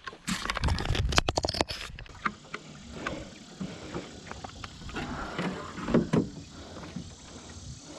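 Small boat being pushed off by hand: a loud rush of scraping and knocking for the first couple of seconds, then scattered knocks and rustling as the hull shifts.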